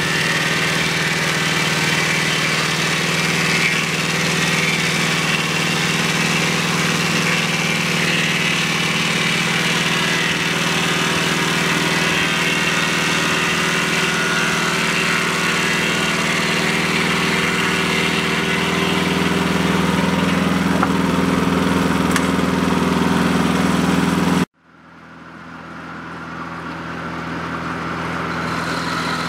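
Mobile Dimension portable sawmill running on its old VW engine, loud and steady, with its circular blades sawing through a cedar log. About 24 seconds in the sound cuts off suddenly, then fades back in to the same engine and saw noise.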